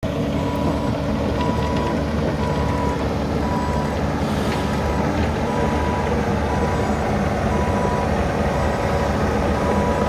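Bobcat E45 mini excavator's diesel engine running steadily as the machine travels on its tracks, with its travel alarm beeping about once a second.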